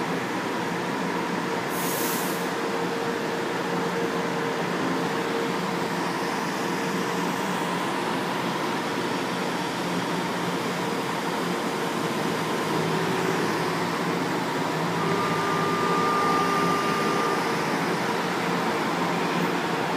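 São Paulo Metro train standing at the platform, its onboard equipment running with a steady hum made up of several held tones. There is a short air hiss about two seconds in.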